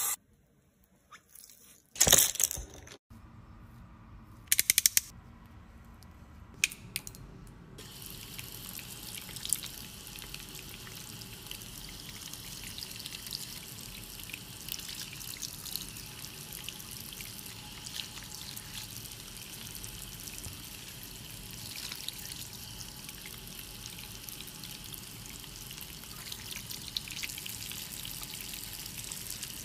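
Tap water running over makeup brushes and hands and splashing into a sink, a steady rush with scattered drips and splashes. A few brief loud sounds come in the first seconds, before the water settles in.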